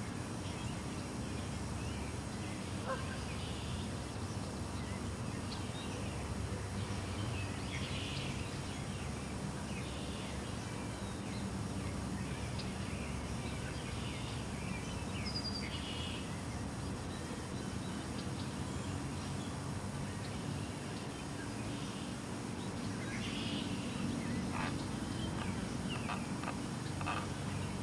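Mallard ducklings peeping now and then in short, high chirps over a steady low background rumble.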